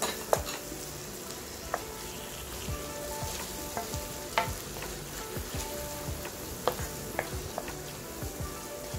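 Sliced onions, garlic and tomato wedges sizzling in oil in a non-stick frying pan while a wooden spatula stirs them, with irregular knocks of the spatula against the pan.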